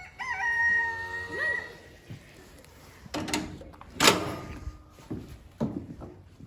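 One long, steady, high-pitched animal call lasting about a second and a half, then a few knocks, the loudest about four seconds in.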